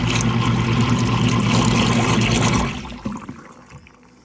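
Kitchen garbage disposal switched on with water in the drain: a steady motor hum with water churning, which stops after about three seconds and winds down. The disposal is clogged, which turned out to be egg shells.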